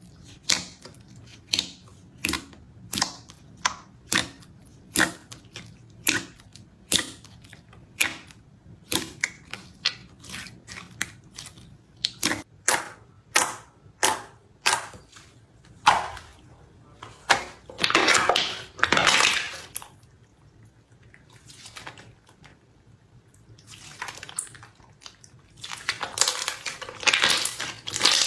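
Crispy slime crackling as it is pressed and worked, first as sharp separate pops two or three a second, then in two dense runs of crackling, one past the middle and one near the end, with a quieter stretch between.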